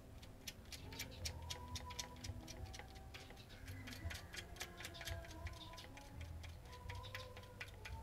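Quick, irregular light metallic clicks and ticks, several a second, as a bolt and the steel lever bracket of a limit switch are handled and fitted by hand on an aluminium extrusion frame.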